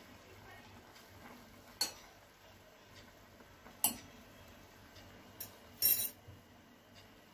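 A metal fork clinking against a steel pot while stirring noodles: a few sharp clinks spread a couple of seconds apart, with the loudest quick cluster near the end.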